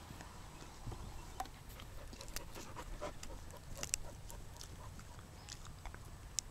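Dog gnawing a wooden stick: scattered small cracks and crunches of wood between its teeth, coming irregularly several times a second.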